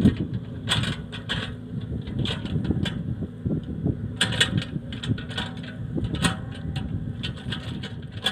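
Compact excavator's diesel engine running steadily, with frequent sharp knocks and clanks over it.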